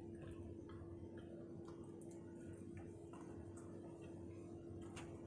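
Faint eating sounds: soft chewing and small irregular clicks, over a steady low electrical hum.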